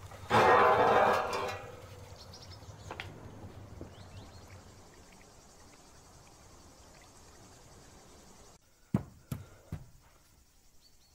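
A loud scrape lasting about a second, something dragged across a hard surface, then a quiet garden background with small birds chirping. Near the end the background drops away suddenly, and three sharp clicks come about a third of a second apart.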